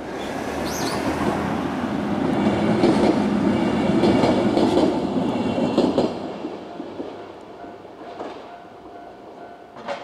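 A two-car 103 series electric train passing, its rumble and wheel clatter building to a peak a few seconds in and then fading after about six seconds. A level-crossing alarm keeps ringing under it, plainest once the train has gone.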